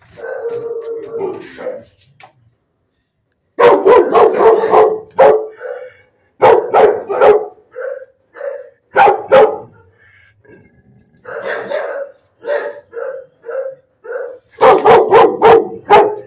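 A large dog barking repeatedly in runs of several quick barks with short pauses between them, the loudest run coming near the end.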